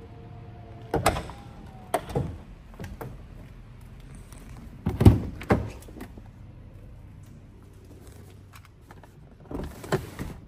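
Lamborghini Urus rear door being worked open, heard as a string of sharp clicks and thunks from the latch and door. The loudest thunk comes about five seconds in, and there is a short burst of rustling near the end.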